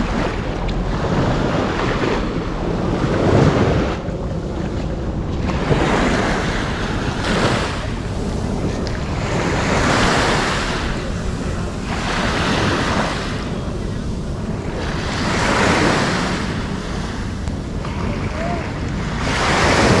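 Waves breaking on the shore, the wash rising and falling every two to three seconds, with wind buffeting the microphone.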